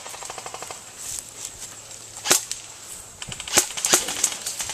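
Airsoft guns firing: a quick rapid-fire run of small ticks at the start, a single sharp shot about halfway, then several more shots and ticks near the end.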